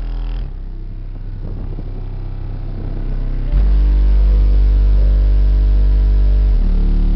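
Bass-heavy music playing through car subwoofers driven by a Kicker 2500.1 amplifier, heard from outside the car. A deep, loud bass note comes in about three and a half seconds in and shifts near the end.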